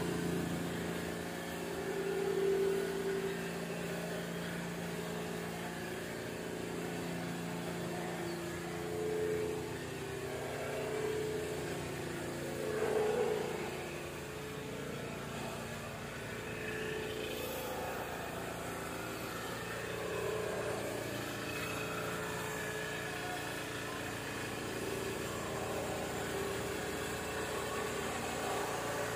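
An engine running steadily, its pitch shifting a little now and then.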